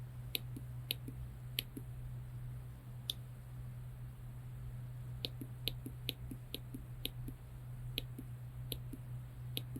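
Small push buttons clicking as an Arduino alarm clock's hour and minutes are set. A few separate presses come first, then a quicker run of about two a second from about five seconds in, over a steady low hum.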